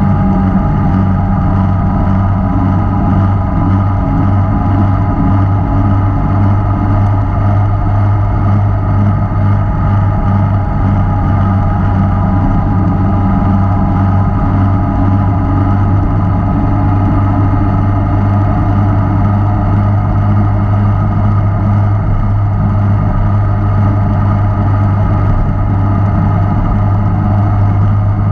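Inline-four sport motorcycle engine running steadily at constant cruising speed, with no revving up or down.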